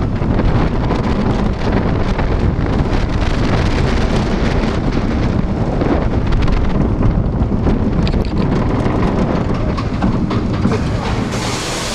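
Roller coaster train running along its track with wind buffeting the microphone: a steady rumble of wheels with rapid clattering. A hiss starts near the end.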